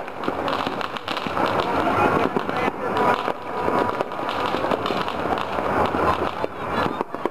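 Fireworks and firecrackers going off all over, a dense, unbroken crackle of many small pops.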